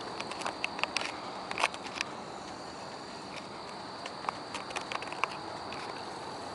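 A steady, high-pitched chorus of insects, with scattered sharp clicks and ticks that bunch up about one to two seconds in and again around four to five seconds in.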